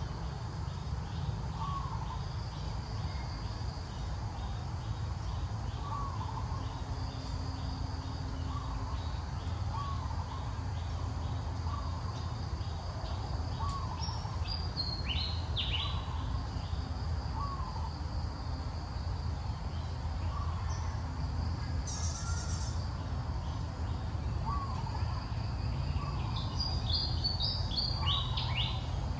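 Outdoor ambience of birds and insects: one bird repeats a short call about every second and a half, and insects pulse steadily. Other birds chirp briefly about halfway through and near the end, over a steady low rumble.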